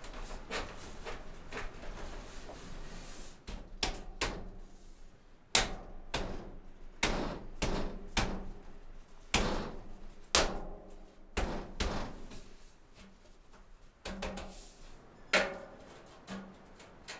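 Black steel stovepipe and elbow being fitted and knocked into place: a run of irregular sharp knocks and thuds, some with a brief metallic ring, the loudest about five and a half seconds in and again near the end.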